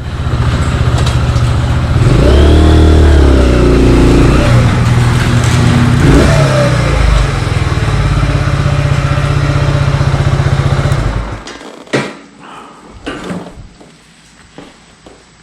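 Kawasaki Z125 Pro's single-cylinder four-stroke engine running loudly and being revved twice, the pitch rising and falling each time. It stops about eleven seconds in, followed by a single thud and some quieter knocks.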